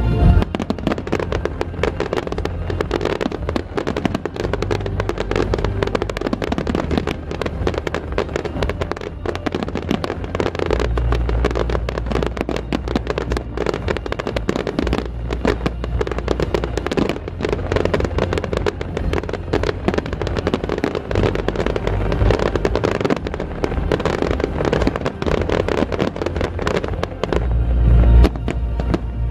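Fireworks display: aerial shells bursting in rapid succession with dense crackling, over accompanying music. Heavy booms come about eleven seconds in and near the end.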